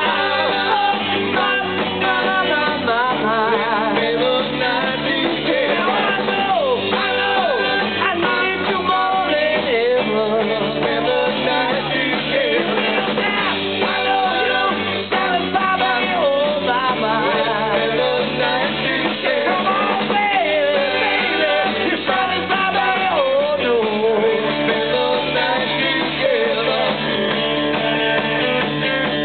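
Live rock band playing: lead and backing vocals over electric guitars and a drum kit, with singing throughout.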